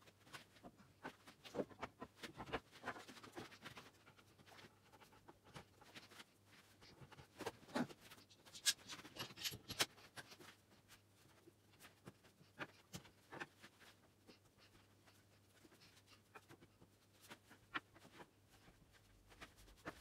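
Scattered light knocks, clicks and scrapes of pine rails, spindles and a metal bar clamp being handled while a bed end is assembled, busiest about eight to ten seconds in, over a faint steady hum.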